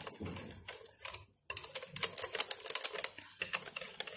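Wire whisk beating a thin zalabia batter in a glass bowl: quick, rapid clicking of the wires against the glass, with a brief break about a second in.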